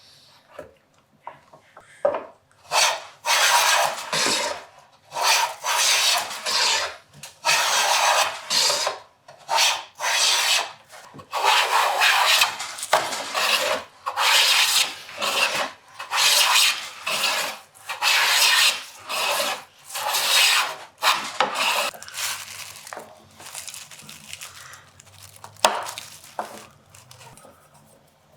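A hand tool working wood in repeated rasping strokes, about one a second, becoming lighter and more irregular near the end, with one sharp tap shortly before the end.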